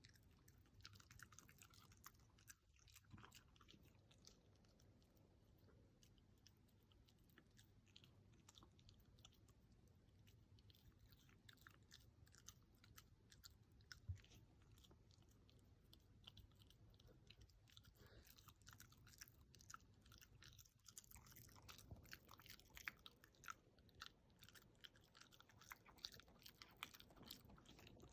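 A dog chewing and crunching its food, a steady run of small irregular crunches and clicks, heard faintly.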